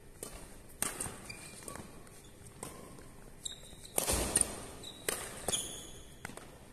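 Badminton doubles rally: rackets strike the shuttlecock in sharp cracks every second or so, with shoes squeaking on the court floor between shots. The loudest sound is a longer burst about four seconds in.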